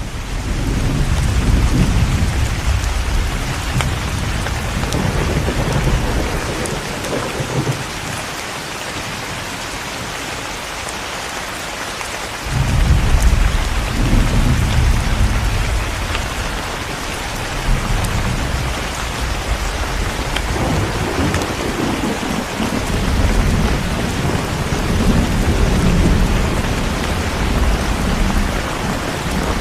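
Steady rain hissing throughout, with rolling thunder rumbling low and swelling on and off. The rumble fades out for a few seconds, then breaks in again sharply about twelve seconds in.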